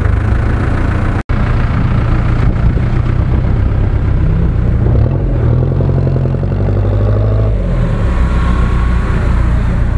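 Off-road vehicle engine running loud and steady, revving up from about halfway through and falling back a little after three-quarters of the way; a brief dropout just over a second in.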